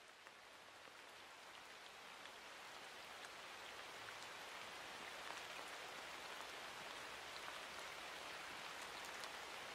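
Faint rain falling, an even patter with scattered drop ticks, swelling gradually over the first few seconds and then holding steady.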